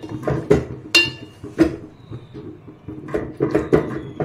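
Wooden spatula stirring thick gravy and koftas in an aluminium pot, knocking and scraping against the metal in a string of irregular clinks, some with a brief metallic ring.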